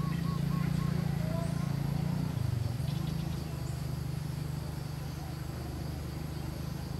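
A motor running with a steady low drone that dips briefly in pitch about two and a half seconds in. A short run of faint repeated chirps comes near the start, over a faint steady high hum.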